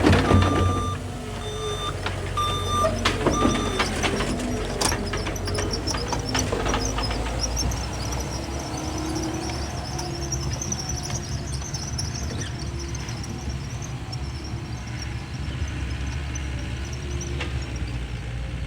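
Skid steer engine running steadily, with its reversing alarm beeping during the first few seconds. Knocks and clatter come between about two and seven seconds in.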